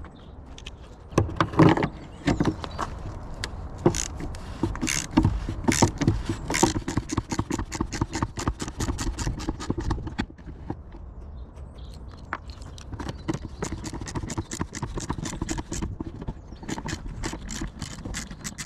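Runs of rapid sharp clicks and knocks, a few each second, from hand tools working on a rotary screw compressor's panel fasteners.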